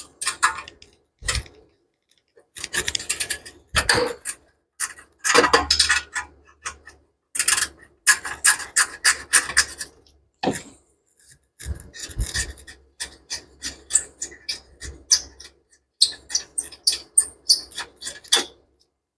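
Hand ratchet clicking in repeated runs of rapid clicks with short pauses between them, as a bolt of the exhaust heat shield is worked loose.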